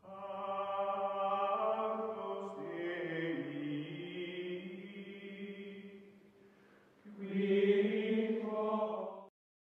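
Outro music of choir-like voices chanting long held notes that shift pitch a few times and fade out about six seconds in. A second, louder held chord follows about seven seconds in and cuts off suddenly just before the end.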